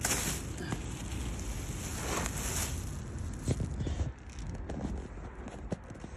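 Black plastic garbage bag rustling and scraping as it is dragged and handled on a concrete floor, with a few short knocks in the second half.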